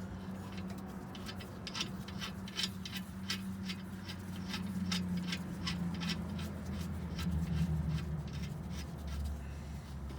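Ratchet wrench clicking in short strokes as the nut is run onto the coilover's lower 17 mm mounting bolt, a few sharp metal clicks a second, over a low steady hum.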